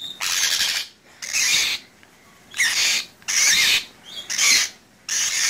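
Young Quaker parrot giving harsh, raspy squawks, about six in a row, each roughly half a second long.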